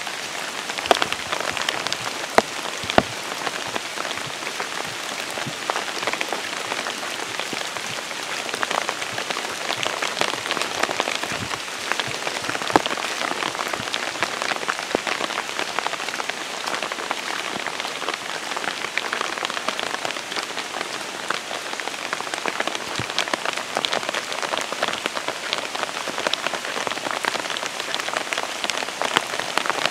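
Steady heavy rain, with many sharp close drop hits scattered through the hiss.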